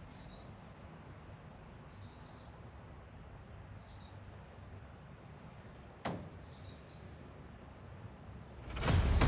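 Faint, high bird chirps, short and repeated every second or so over quiet background hiss. A single sharp click comes about six seconds in, and a loud burst of sound begins just before the end.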